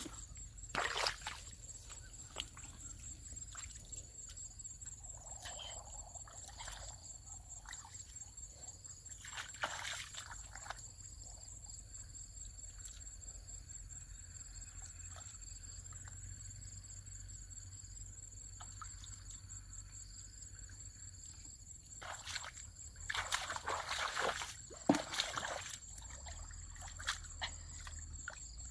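Water splashing and sloshing in a few short bouts, near the start, in the middle and most strongly near the end, over a steady high insect trill.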